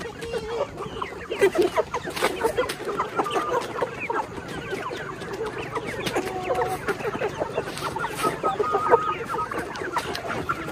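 A flock of young chickens, about three months old, clucking and calling continuously, many birds at once with overlapping short calls and a few longer ones.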